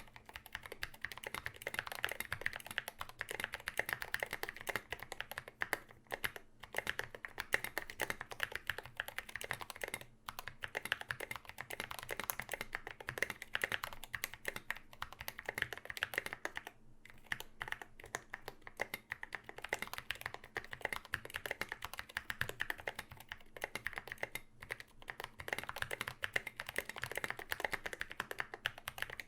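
Continuous typing on a KBD75v2 aluminum-plate mechanical keyboard with Zealios v2 65g tactile switches and SA doubleshot ABS keycaps: a dense, irregular run of keystroke clacks with a couple of brief pauses.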